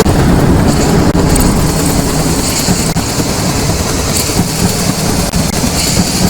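Glitch-processed field recording of a steady low mechanical rumble with a hiss above it, cut by a brief dropout about a second in.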